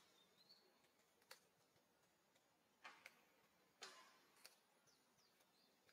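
Near silence with a few faint, sharp clicks spaced about a second apart and a brief faint high chirp.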